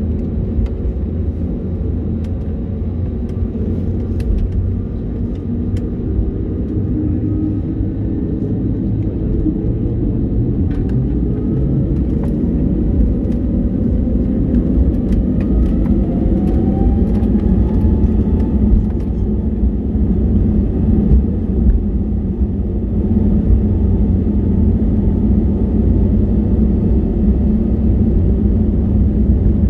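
Airbus A320neo cabin noise: a deep, steady rumble of the engines and the rolling airliner that grows a little louder partway through, with several tones gliding upward, as the engines speed up for the takeoff roll.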